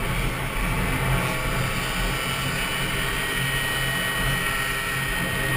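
Tuned Peugeot Fox 49cc two-stroke moped engine running at high revs under racing load, its pitch and level staying steady.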